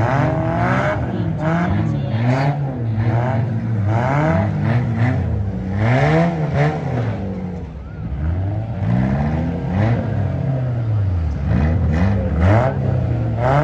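Several 1990s-and-newer compact cars' engines revving up and down repeatedly, overlapping, as the cars accelerate and back up to ram each other in a demolition derby, with occasional sharp bangs of car-body impacts.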